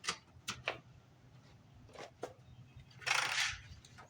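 Dry feed being stirred and poured together with wormer in a feed container: a few light clicks, then a short rustling pour about three seconds in.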